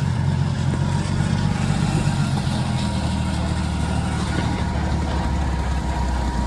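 Engine of a post-hole auger drilling rig running steadily with a low, even drone.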